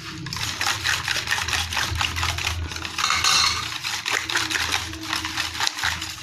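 Hand whisk beating cream into cooled custard in a metal pot, its wires clicking and scraping rapidly against the pot, with a louder swish about three seconds in.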